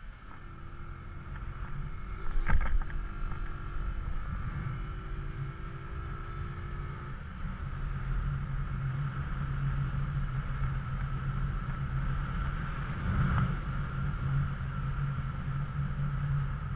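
Bajaj Boxer CT 100's small single-cylinder four-stroke engine running steadily as the motorcycle rides through city traffic. Its hum grows stronger from about eight seconds in. A sharp clack about two and a half seconds in is the loudest sound.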